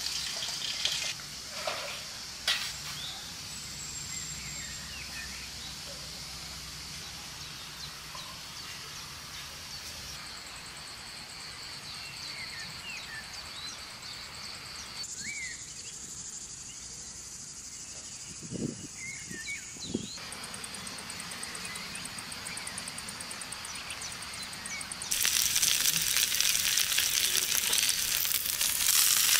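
Countryside background with scattered bird chirps and a steady insect buzz, changing abruptly several times. About 25 seconds in it gives way to a loud sizzle of yellow split peas and dried plums frying in a pan over a fire as they are stirred.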